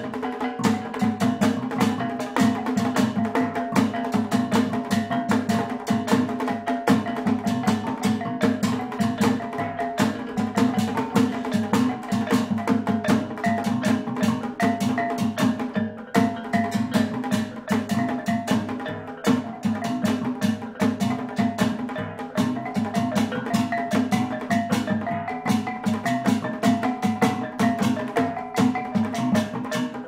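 Kulintang gong ensemble playing: a row of tuned bossed brass gongs struck fast with wooden beaters, the melody stepping up and down over a steady low ringing, with a dabakan goblet drum beaten with sticks keeping a dense rhythm.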